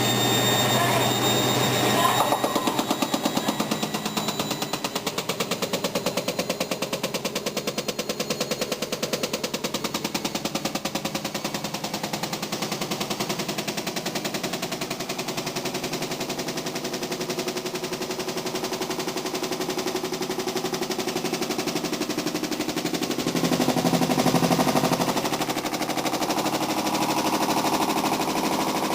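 Hotpoint WM62 washing machine on spin with a rapid, continuous knocking and rattling from the drum, rising in level for a few seconds near the end. A steady whine at the start gives way to the knocking about two seconds in. The owners suspect a broken drum spider and bearings, as the drum is moving a lot.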